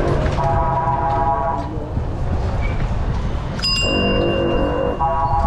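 Vehicle horns honking in long blasts of about a second each, one higher-pitched and one lower, over the low rumble of a cycle rickshaw ride. About three and a half seconds in, a single sharp metallic strike rings on.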